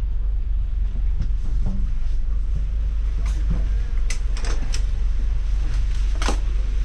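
Steady low rumble of a double-decker tour bus running, heard from the upper deck. Several sharp clicks and knocks come from about three seconds in, the loudest near the end.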